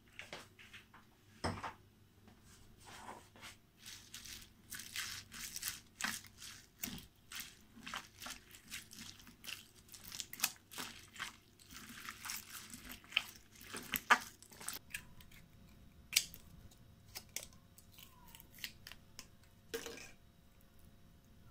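Hands squishing and mixing slime loaded with beads and glitter on a glass plate: a dense run of quick crackling, popping squelches that thins out after the first two-thirds.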